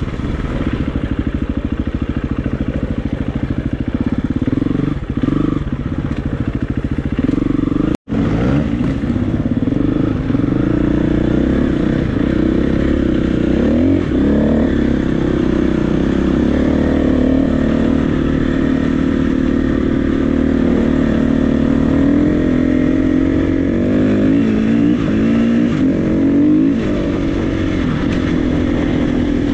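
KTM 350 EXC-F's single-cylinder four-stroke engine running under way, its pitch rising and falling as the throttle is worked. The sound breaks off for an instant about eight seconds in.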